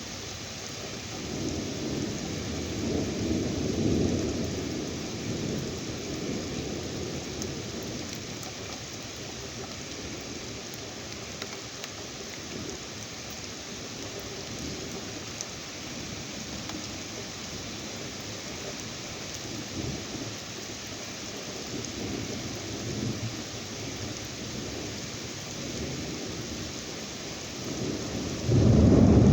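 Steady rain with rolling thunder during a thunderstorm. The thunder swells in low rumbles about a few seconds in and again past the middle, and a much louder low rumble begins just before the end.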